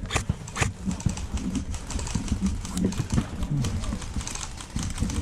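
Two sharp clicks about half a second apart near the start, then a run of lighter clicks and rustling.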